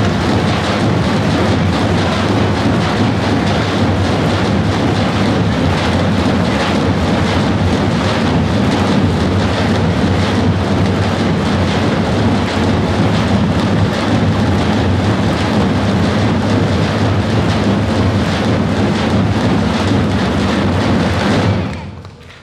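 A large ensemble of Macedonian tapans, big double-headed folk drums, beaten together in a dense, continuous roll with a deep booming low end. The drumming stops abruptly near the end.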